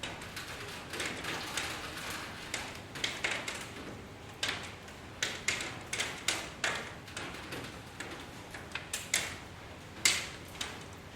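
Rain: irregular drops tapping and dripping, a few each second, each tick fading quickly, over a soft steady hiss.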